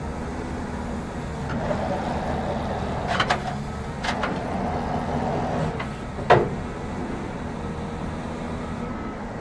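Forestry excavator's diesel engine and hydraulics running steadily while the TreeKing processor head works, with a few sharp knocks about three and four seconds in and a louder one about six seconds in.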